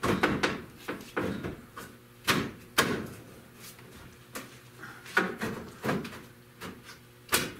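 Metal T-top trim pieces being handled: a series of separate knocks and clatters, a dozen or so at irregular intervals, the sharpest one near the end.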